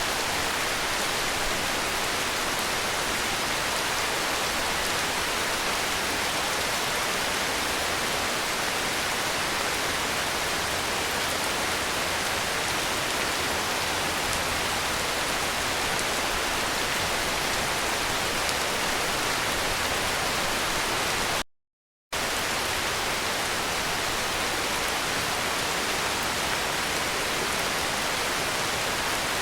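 Heavy rain falling as a steady, even hiss, with no distinct drops or thunder. It cuts out completely for about half a second two-thirds of the way through, then resumes unchanged.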